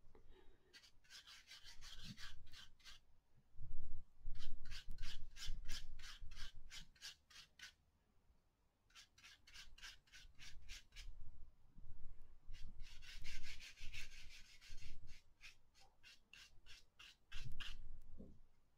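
Paintbrush stroking back and forth across watercolour paper in quick runs of about five or six scratchy rubs a second. The runs last a few seconds each, with short pauses between them.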